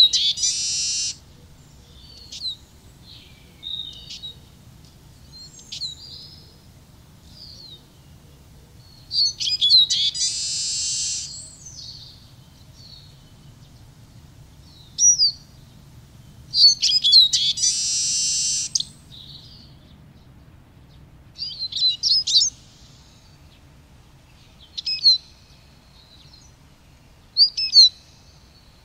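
Eurasian siskin singing: bursts of quick, high twittering chirps, three of them drawn out into a long buzzy wheeze lasting one to two seconds, near the start, about ten seconds in and about seventeen seconds in.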